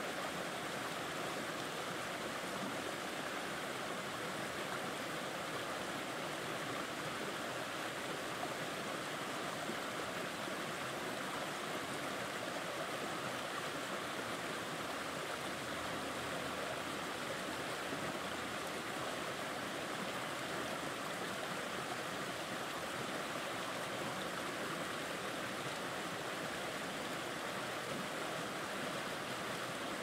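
Small rocky stream spilling over boulders in a low cascade into a pool: a steady, even splashing of running water with no breaks.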